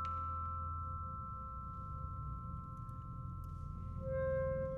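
Contemporary chamber music for flute, saxophone, percussion and piano: a few soft, steady high tones sustain together. About four seconds in, a new held note with overtones enters, a little louder.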